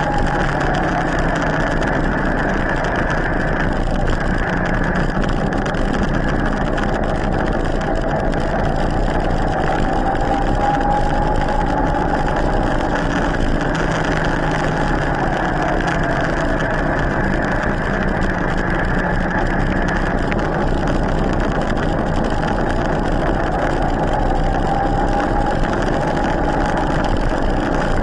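Electric mountain bike's motor whining steadily in turbo assist, its pitch slowly rising and falling with the riding speed, over a constant rush of wind and tyre noise on asphalt.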